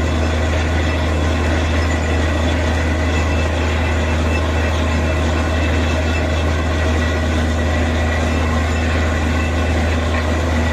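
Borewell drilling rig running steadily: a loud, unbroken low engine drone with many steady tones above it, as muddy water pours out of the bore around the drill pipe.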